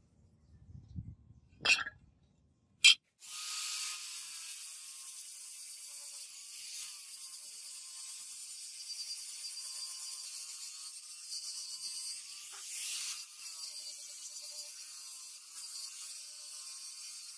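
Two sharp clicks, then an angle grinder running steadily against a rusted steel cleaver blade, grinding the rust off with a high, even hiss.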